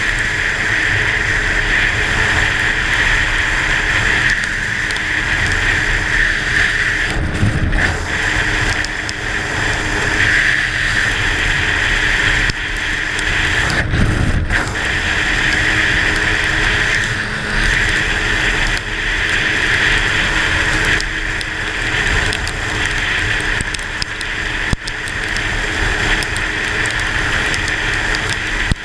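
Steady rushing wind on the microphone and hissing wet-road noise from a vehicle travelling at speed in the rain.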